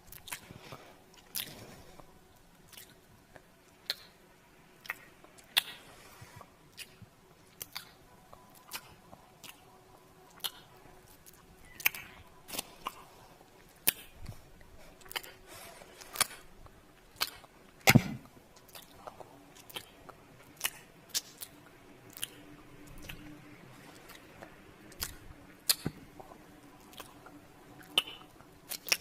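Close-up kissing and lip-smacking sounds: wet lip smacks and pops at irregular intervals, about one or two a second, with one louder smack about two-thirds of the way through.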